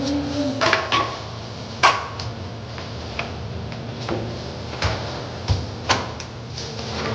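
Kitchen handling sounds: seasoning bottles and jars being picked up and set down on a counter, giving a handful of sharp knocks and clicks spread irregularly through.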